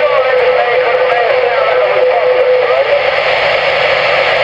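CB radio receiver hiss carrying garbled, warbling voice traffic that cannot be made out as words. A steady whistle tone runs under it and stops about three seconds in.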